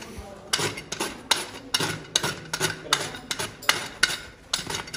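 Horse hoof being trimmed with a farrier's hand tool: short, sharp scraping strokes against the hoof horn, about two a second.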